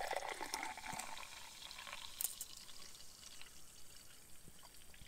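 Sunkist soft drink being poured, the liquid running strongest at the start and trailing off after about two seconds.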